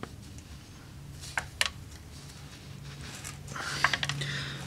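Tongue-and-groove pliers working at a tight transmission filter seal in an automatic transmission's case: two sharp metal clicks about a second and a half in, then a run of clicks and scraping near the end as the grip shifts on the stuck seal.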